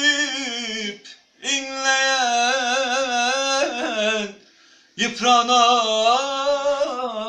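A man singing a Turkish song unaccompanied: long, wavering, ornamented vocal phrases, three of them separated by short breaks for breath.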